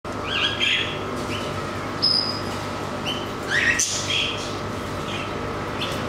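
Cockatiels chirping: a run of short, upward-bending chirps and whistles, one high whistle about two seconds in, the loudest cluster a little past halfway, over a steady background hiss.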